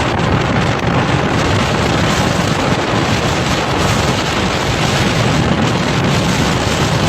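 Steady, loud rushing of wind buffeting the microphone in a snowstorm.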